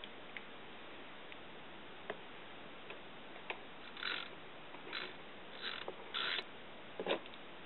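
Socket wrench ratcheting in short rasping spurts while tightening the engine oil drain plug on a GY6-type scooter engine, with light metallic ticks and a sharper knock near the end.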